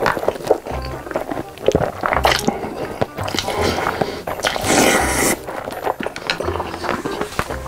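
Background music with a bass line, over close-miked eating sounds: bites and chewing.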